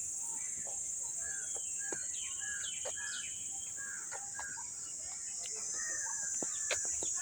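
Birds chirping in many short calls over a steady, high-pitched hiss, with a few sharp clicks.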